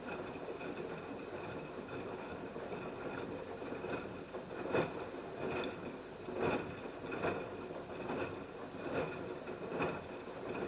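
LG F10B8QD1 direct-drive front-loading washing machine mid-wash: a steady motor hum with a faint whine as the drum turns. From about halfway there is a regular beat roughly every 0.8 seconds as the drum tumbles the wet laundry and water.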